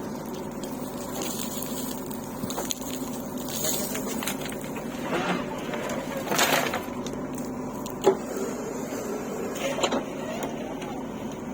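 Heavy-machinery diesel engine running steadily, with a few sharp knocks and short bursts of noise over it, the sharpest knock about eight seconds in.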